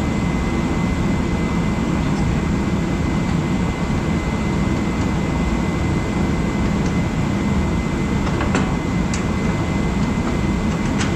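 A steady, loud roar of running machinery that does not change, with a few light clicks near the end.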